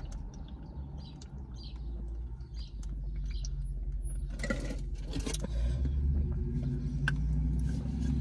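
A person drinking in long swallows from a tumbler, faint gulps and clicks, over the low steady hum of a car's idling engine. A brief louder rustle comes about halfway through.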